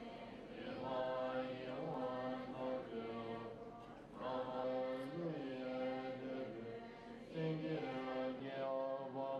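A group of Tibetan Buddhist monks chanting prayers, held sung phrases with short breaks about four and seven seconds in.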